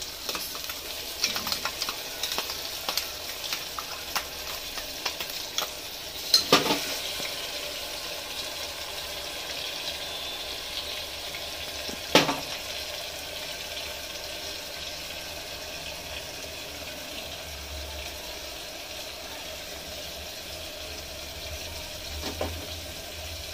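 Onions and tomatoes sizzling steadily in hot oil in an aluminium pressure cooker, with a spoon scraping green chilli, garlic and coriander paste out of a steel bowl into the pot. Small scraping clicks come over the first few seconds, then two sharp metal clanks about six and a half and twelve seconds in, and a fainter one near the end.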